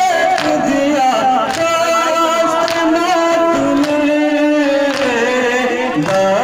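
Loud music with singing: long held notes that slide up and down in pitch.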